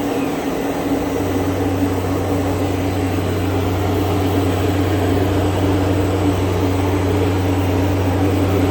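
Okamoto IGM 15NC CNC internal grinder running: a steady machine hum, joined by a deeper steady hum about a second in.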